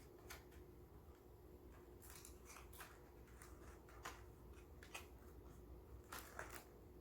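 Near silence: room tone with a steady low hum and a few faint, scattered rustles and soft clicks.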